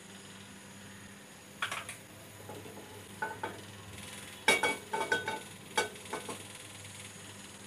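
Several light, ringing clinks of kitchen utensils and dishes being handled, one near two seconds in, a couple around three seconds and a quick cluster between four and six seconds, over a faint steady low hum.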